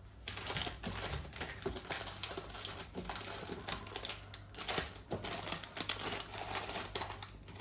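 Plastic jewellery packaging rustling and crinkling as the next piece is unwrapped: a dense, irregular run of small crackles and clicks that starts suddenly and thins out near the end.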